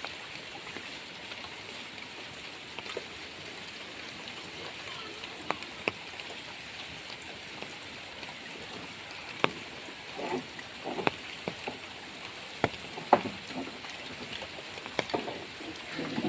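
Steady hiss of water noise with a few sharp clicks scattered through the second half.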